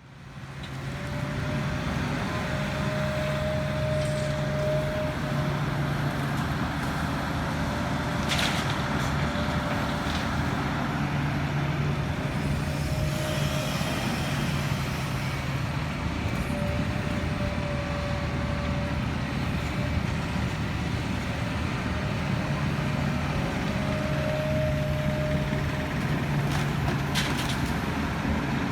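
Heavy diesel construction machinery running, its engine note swelling and easing every few seconds, with a higher whine coming and going. A sharp clatter about eight seconds in and another near the end.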